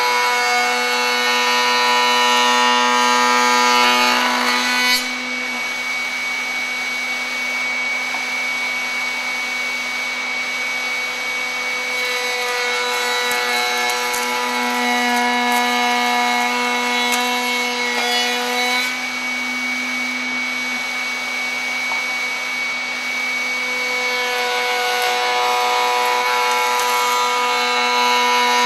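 Router running on a router table, spinning a 45-degree lock miter bit, with a steady high motor whine and the rasping of boards being fed through the cut. The cutting is louder for the first five seconds and again near the end.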